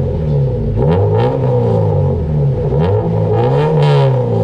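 Honda Civic VTi's engine revved several times through a chambered muffler and headers, its pitch rising and falling with each rev, the highest rev near the end.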